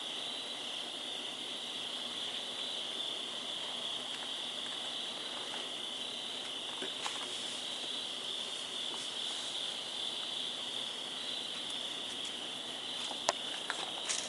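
A steady chorus of crickets chirping, one unbroken high band of sound, with a couple of sharp clicks near the end.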